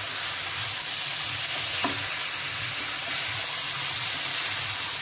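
Chicken pieces with onions and ground spices sizzling steadily as they fry in a nonstick pan, stirred with a silicone spatula. One light knock about two seconds in.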